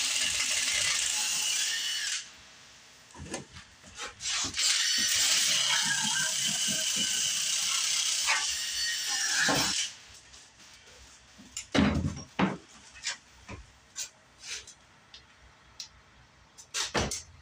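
A shop tool runs in two loud bursts, one of about two seconds and one of about five seconds, with scattered knocks and clatter between them and after.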